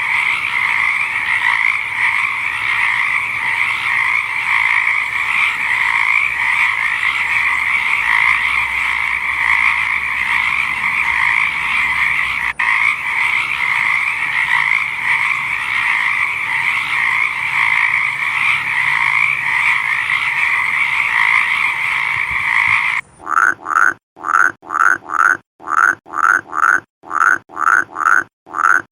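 A dense chorus of many frogs calling together in an unbroken trilling din. About 23 seconds in it cuts abruptly to a single frog's repeated short croaks, roughly two a second.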